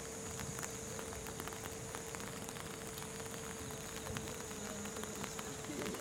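Rain pattering on an umbrella overhead: an even hiss broken by many irregular drop clicks, over faint steady high tones.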